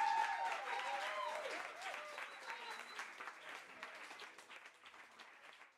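Audience applauding after a live acoustic set, with a few voices cheering in the first second or so. The applause then dies away steadily.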